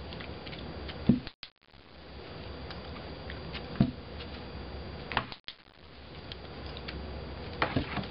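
Four sharp clicks and knocks, one to three seconds apart, from clicker training as a Shetland sheepdog paws at and noses into an open cardboard box.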